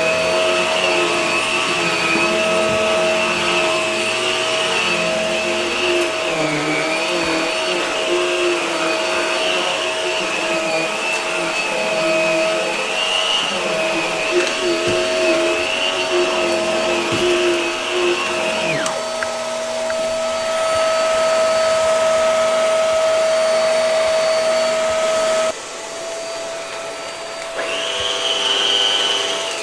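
Hart vacuum cleaner running with a steady motor whine. About two-thirds of the way through, the higher wavering part of the whine stops and the sound steadies. Near the end the level drops suddenly, then a higher whine briefly comes back.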